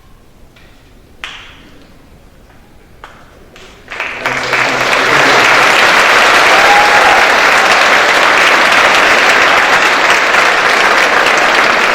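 Audience applauding. Two light knocks come first, then the clapping breaks out about four seconds in and stays dense and steady.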